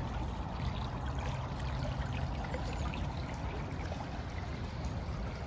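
Floodwater from an overflowing river running steadily, an even rush of water with a low rumble underneath.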